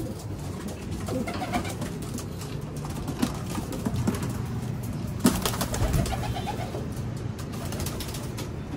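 Racing pigeons cooing in their loft, with scattered light clicks and rustles and one sharp knock about five seconds in.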